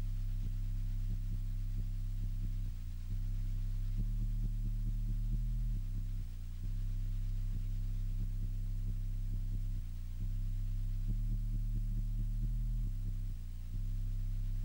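Low electronic drone music: deep, sustained bass tones that shift in pitch every second or two in a repeating pattern, with faint ticks.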